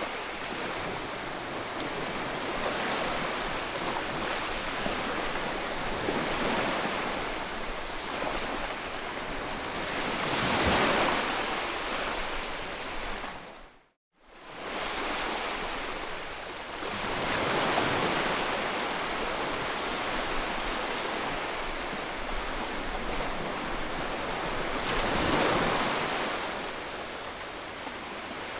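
Steady rush of floodwater, swelling louder every several seconds. It breaks off abruptly for a moment near the middle.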